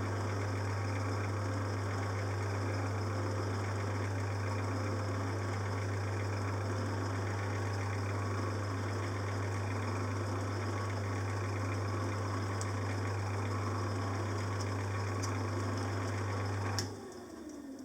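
Small metal lathe running steadily with a strong low hum while parting off a brass piston blank. Near the end it is switched off with a click and the motor winds down with a falling tone.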